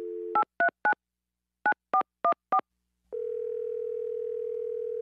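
A telephone dial tone, then seven touch-tone (DTMF) digits keyed, three and then four, each a short two-note beep. A steady ringback tone starts about three seconds in as the call rings through.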